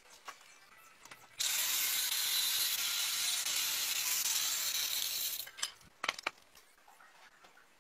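Angle grinder with a cut-off disc cutting across a flat steel bar: a steady hiss that starts suddenly about a second and a half in and stops abruptly about four seconds later. A few sharp metallic clicks follow as the cut piece is handled.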